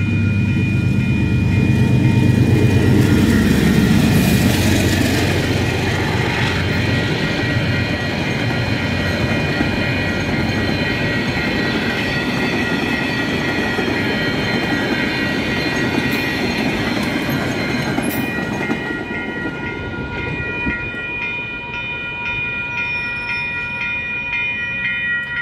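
Two KiwiRail DXC class diesel locomotives pass loudly in the first few seconds. A long string of flat wagons follows, rolling and clattering over the rails as the noise slowly fades. Level crossing warning bells ring steadily throughout, and their repeated strikes stand out near the end as the wagon noise drops.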